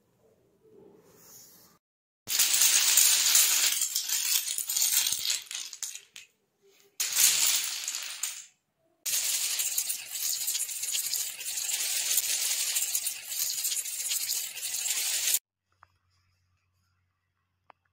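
Dominoes toppling in chains, a dense rapid clatter of small clicks. It comes in three runs: from about two seconds in for some four seconds, briefly around seven seconds, and again from about nine seconds in until it stops about fifteen seconds in.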